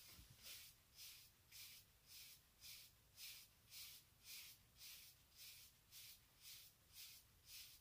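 Wave brush bristles stroking over short hair, a faint soft hiss with each stroke, about two strokes a second.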